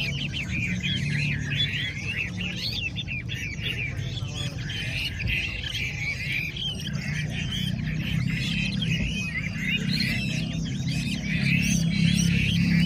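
Many caged Chinese hwameis singing at once, a dense overlapping chorus of whistled phrases, over background music that gets louder near the end.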